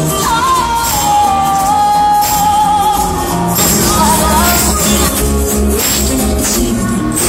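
Music: a singer holding long notes over a band with a steady beat.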